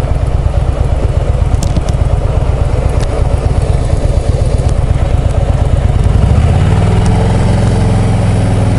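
Harley-Davidson V-twin motorcycle engine loping unevenly at low speed. About six seconds in it pulls away under throttle and settles into a steadier, slightly louder drone.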